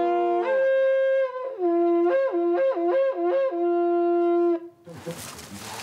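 A horn blown in long notes that step cleanly between a low tone and a higher one. It starts on the low note and climbs to the higher note about half a second in, then flips quickly back and forth between the two in the middle. It ends on a long low note that stops sharply near the end, leaving faint outdoor wind noise.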